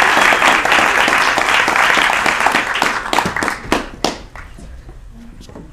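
Audience applause, dense at first, then thinning to scattered separate claps and dying out a little after four seconds in.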